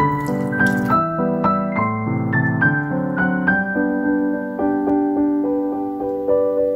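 Background piano music: a gentle waltz played as a melody of struck notes over held lower notes.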